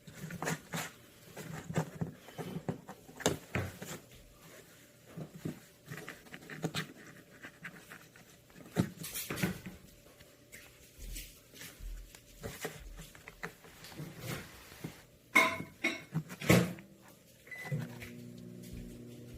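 Kittens playing with a cardboard box: irregular scratching, rustling and patting of paws on the cardboard, with a few louder knocks near the end. A low steady hum comes in at the very end.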